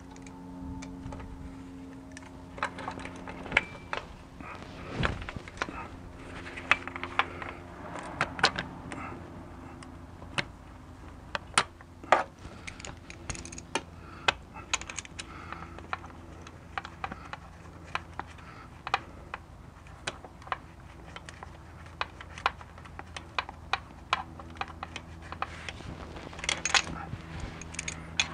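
Scattered small clicks and metallic taps as a clutch slave cylinder is worked up into place on a ZF 5-speed manual transmission's bellhousing, hardware knocking against the aluminium case, over a steady low hum.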